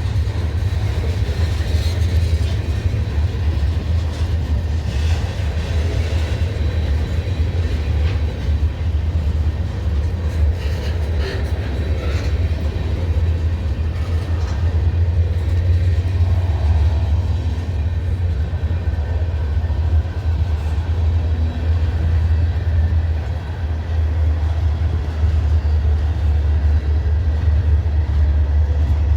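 Diesel locomotive hauling a freight train at slow speed: a steady low rumble, with a few brief knocks from the cars.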